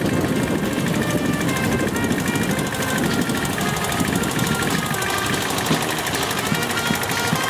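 Walk-behind tractor (motoculteur) engine running with a fast, even beat.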